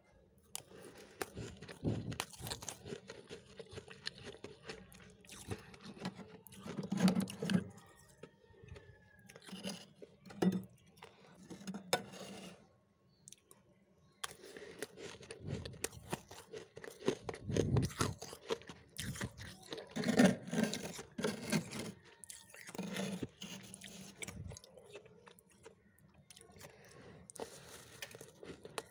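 Freezer frost being bitten and chewed close to the microphone: irregular crisp crunches, with a pause of about a second and a half near the middle.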